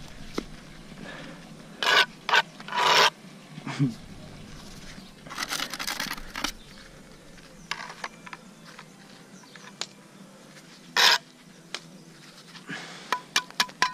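Mason's trowel scraping over concrete blocks and mortar in a handful of short, separate strokes. Near the end comes a quick even run of ringing ticks.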